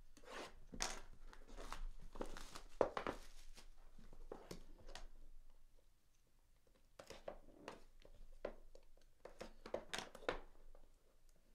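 Trading card box packaging being torn open and crinkled by hand, in irregular rustling crackles with a short pause in the middle.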